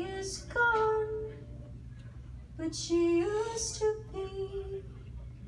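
A young woman sings solo into a microphone: two short phrases of held and gliding notes with a pause between them, over a steady low hum.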